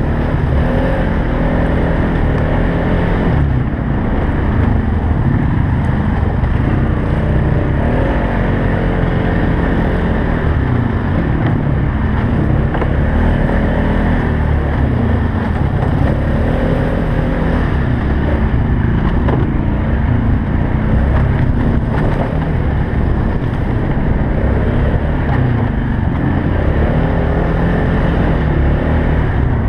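Polaris Sportsman 570 utility quad's single-cylinder four-stroke engine running hard under racing throttle, its revs rising and falling every second or two as the rider speeds up and backs off through the trail's turns.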